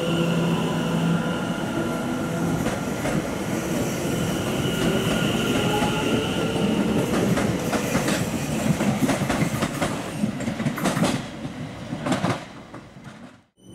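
London Overground electric train pulling out of the platform: its motor whine rises in pitch as it gathers speed, then the wheels click rapidly over the rail joints. The sound fades away near the end.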